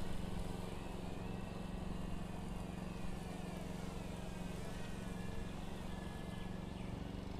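DM007 mini quadcopter's motors and propellers buzzing in flight, with a steady hum under a higher whine that drifts gently up and down as the throttle changes.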